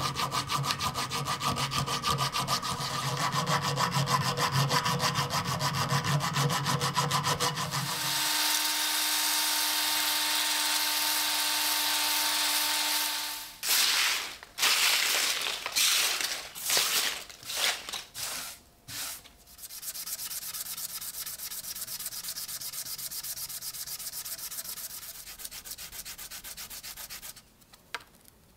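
A hand file scraping a polished steel fitting in fast, even strokes for about eight seconds, then a steadier scratching for several seconds. Used sandpaper scraps crinkle and rustle irregularly as they are swept together by hand. A small washer is then rubbed back and forth on a sheet of sandpaper in fainter, regular strokes, and a brief near silence follows just before the end.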